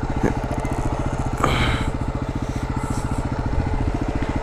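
Yamaha WR250R's single-cylinder four-stroke engine running at low revs with an even, rapid chugging pulse. A short burst of hiss cuts in about a second and a half in.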